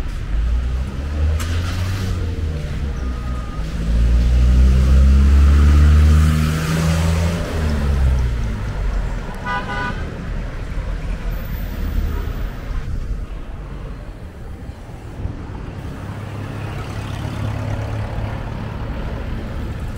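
Street traffic: a motor vehicle's engine grows louder as it passes close, its pitch falling as it moves away, and a horn gives a short toot about halfway through, over a steady traffic rumble.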